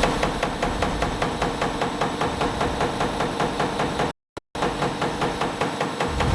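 Diesel injector test bench driving a Delphi unit injector for a Volvo engine: a rapid, evenly spaced knocking of each cam-driven injection stroke over the bench's running hum. The sound cuts out briefly about four seconds in.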